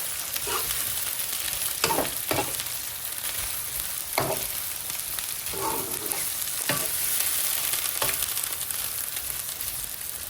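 Chickpeas sizzling in a hot pan of seasoned mix, stirred with a utensil that knocks and scrapes against the pan several times.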